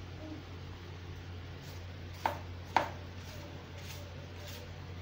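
Two sharp knocks of a kitchen utensil on hard kitchenware, about half a second apart, over a steady low hum.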